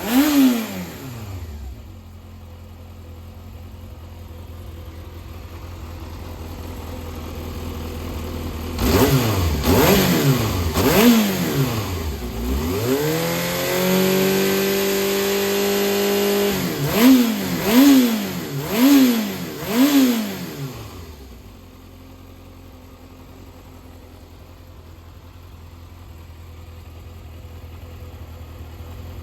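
Yamaha XJR400R2's air-cooled inline-four engine idling, blipped on the throttle: a blip at the start, a few blips in the middle, a rise to a rev held steady for a few seconds, then four quick blips before it settles back to idle. The seller presents it as running well with no abnormal noises.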